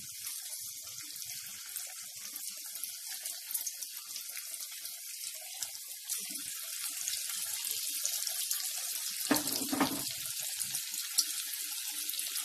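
Grated-potato pakoras frying in hot oil in an aluminium kadhai: a steady sizzling hiss with crackles, growing louder about six seconds in as more mixture is dropped into the oil. A brief dull thump about nine and a half seconds in.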